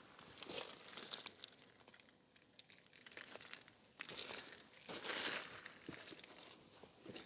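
Irregular crunching and rustling with a few light clicks, loudest about five seconds in.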